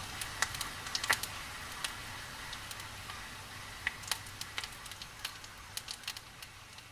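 Fire crackling: irregular sharp pops and snaps over a steady hiss, slowly fading.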